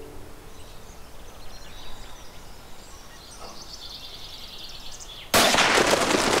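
Quiet outdoor ambience with a few faint high bird chirps, then about five seconds in a sudden loud gunshot that carries on in a long, rolling crackle: the shot of the autumn hunt.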